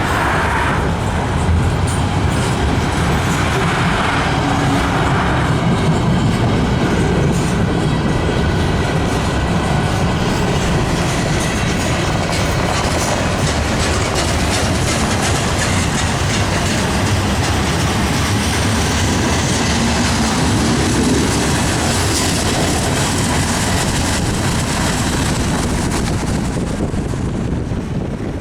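Freight train rolling past close by, its wheels clacking steadily over the rail joints. The sound eases off near the end.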